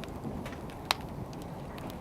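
Wood fire burning with a steady low rumble, crackling now and then, with one sharp pop about a second in.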